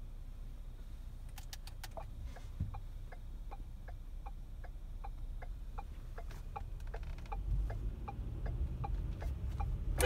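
A vehicle's turn-signal indicator clicking in its tick-tock rhythm, about three ticks a second, heard inside the cabin. A low engine and road rumble grows louder over the last couple of seconds as the vehicle gets moving.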